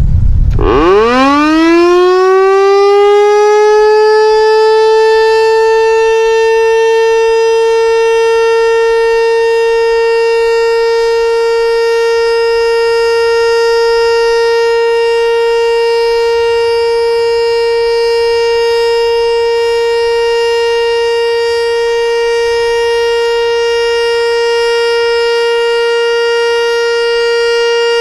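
ASC T-112 outdoor warning siren starting up: its tone rises steeply from a low growl and settles within a few seconds into one steady, loud, high tone. It then holds that tone unchanged, the steady Alert signal of a siren test.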